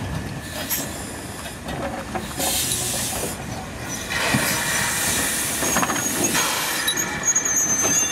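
NZR AB-class steam locomotive moving slowly, with a steam exhaust beat coming every couple of seconds. A high wheel squeal joins in over the last couple of seconds.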